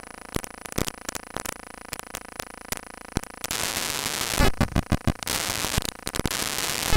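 Static crackle: scattered sharp clicks, with a hiss coming in about three and a half seconds in, a quick run of clicks, then hiss again near the end.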